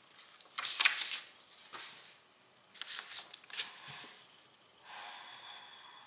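Sheets of paper rustling and sliding as pages are swapped, in a few short bursts with a softer rustle near the end.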